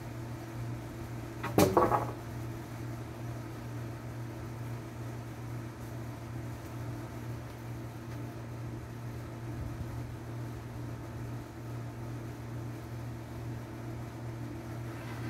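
Steady low mechanical hum, with a short, loud clatter of knocks about a second and a half in.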